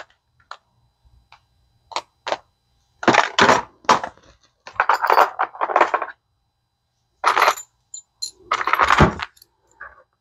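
Small metal tools and parts clinking and rattling as they are handled and set into a plastic toolbox, in a series of short, irregular bursts.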